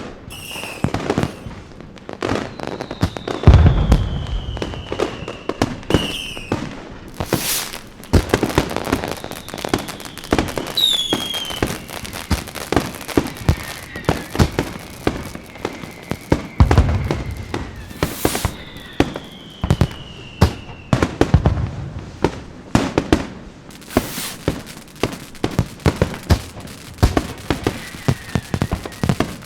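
Fireworks: a steady stream of sharp crackling pops, with several whistles that fall slowly in pitch, and two deep booms, the loudest about three and a half seconds in and another just past the middle.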